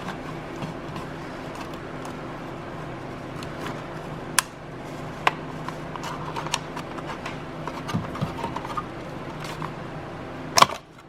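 Scattered clicks and taps of hand tools and small parts being worked under a car dashboard, with a sharp click a little after four seconds and another near the end, over a steady low hum.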